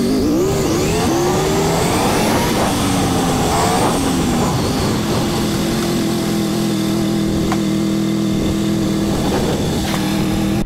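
Motorcycle engine under way, its pitch rising and falling for the first few seconds and then settling into a steady drone at constant speed, over a steady rush of wind.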